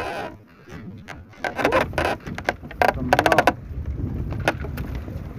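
Gillnet being hauled by hand over the wooden gunwale of a small fishing boat, with scraping and knocks, over a steady low rumble of wind and sea.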